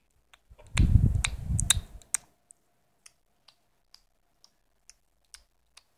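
Handling noise: rubbing and knocking against the phone's microphone for about a second, then a row of faint, evenly spaced clicks, about two a second.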